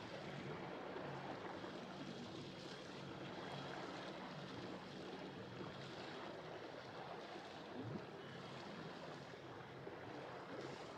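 Yacht's engine running steadily at low cruising speed, a faint low hum, with a steady wash of water and wind over it.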